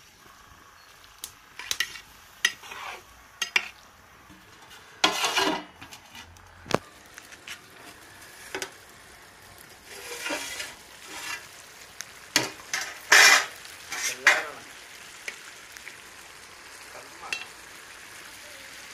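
Perforated metal ladle scraping and knocking against a large metal cooking pot as a thick curry is stirred, in scattered irregular strokes. Partway through, a metal lid is set onto the pot.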